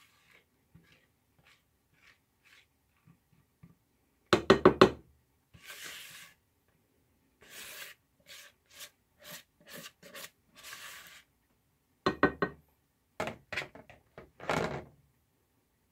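Spatula scraping cake batter out of a plastic mixing bowl in a run of short strokes, broken by two bursts of rapid knocks, the loudest sounds: four or five quick raps a little after four seconds in and another set from about twelve seconds in.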